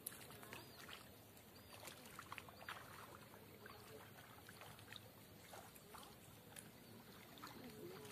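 Faint splashing and sloshing of people wading in shallow river water, heard as scattered soft splashes over near silence.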